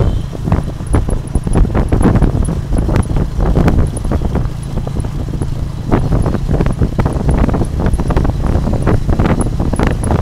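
Tuk-tuk riding along a rough dirt road: a steady low engine hum under wind buffeting on the microphone, with a constant clatter of knocks and rattles from the carriage.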